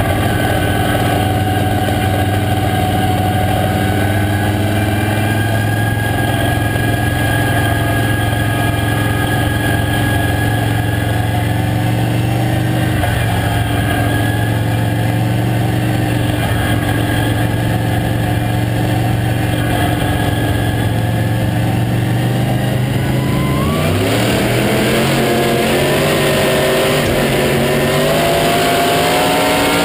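Late model stock car's V8 engine heard from inside the cockpit, holding a steady low speed, then accelerating hard with its pitch climbing for the last several seconds.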